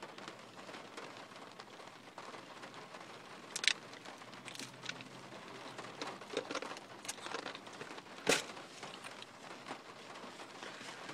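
Fast-food packaging and utensils handled while eating: scattered crinkling and sharp clicks, the two loudest about a third of the way in and about three-quarters in.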